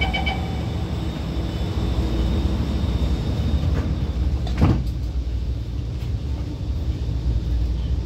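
Alstom Movia R151 metro train's sliding passenger doors closing, the door-closing beeps stopping just after the start and a single thud about four and a half seconds in, over the train's steady low hum.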